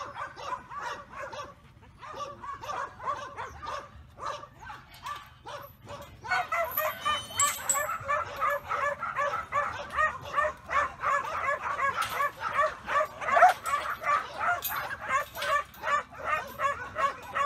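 A kelpie yard dog barking rapidly and steadily at sheep, about three or four barks a second, getting louder about six seconds in. This is a working bark, given on command to push the sheep along in the yards.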